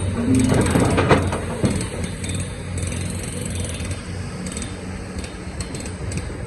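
Excavator engine running steadily, with a few sharp knocks and scrapes in the first couple of seconds, then a steadier drone.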